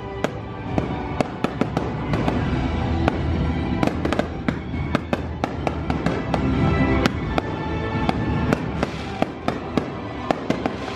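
Fireworks bursting and crackling: many sharp cracks and pops, several a second, with music playing underneath.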